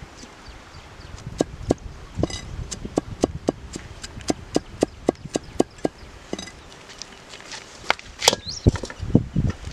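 Large knife chopping garlic on a wooden log block: a quick, even run of sharp knocks, about four a second. Near the end comes a louder clatter and a few heavier thuds.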